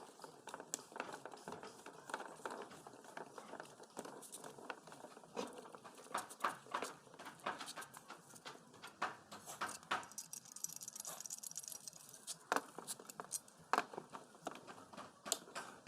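Scattered light clicks and knocks at an irregular pace, from hand-pump parts and tools being handled, with a brief hiss about ten seconds in.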